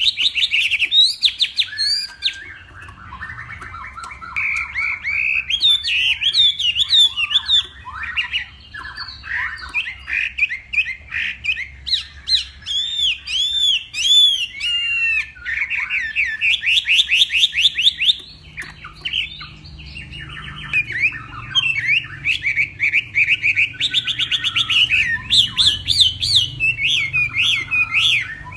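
Chinese hwamei singing a long, varied song: phrase after phrase of rapidly repeated whistled notes and quick rising and falling slurs, with only brief pauses between phrases.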